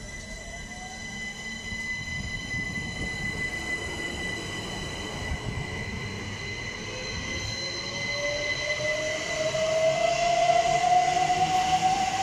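A pair of Class 387 Electrostar electric multiple units pulling away, their traction motors whining and rising steadily in pitch as the train gathers speed. It grows louder in the last few seconds as the train passes.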